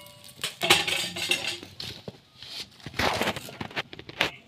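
A run of short, irregular clinks, scrapes and knocks around a wood-fired clay stove with a metal kadai on it, as sticks of firewood are pushed into the fire.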